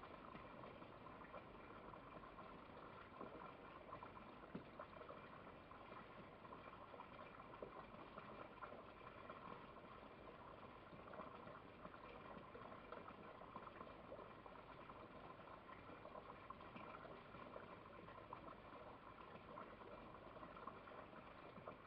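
Near silence: a faint, steady hiss with no distinct sounds.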